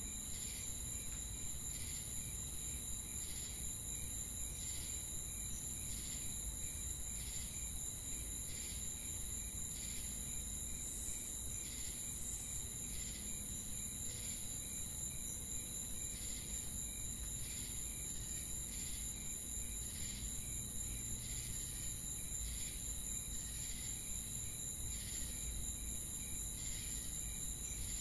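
Crickets chirping in a night-time insect chorus: regular pulsing chirps over a steady high-pitched shrill that never stops.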